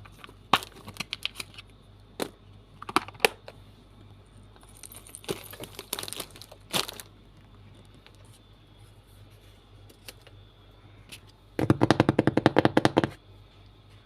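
Packing materials being handled: scattered sharp clicks, taps and short crinkling rustles of plastic or paper, then a dense, rapid rattling run lasting about a second and a half near the end.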